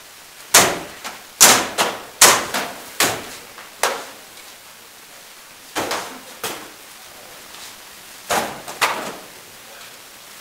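Rattan sword blows cracking against shields and armour in SCA heavy combat: sharp strikes in quick flurries, about six in the first four seconds, a couple more around six seconds, and another two or three near the end. The strikes ring off the bare walls of a small hall.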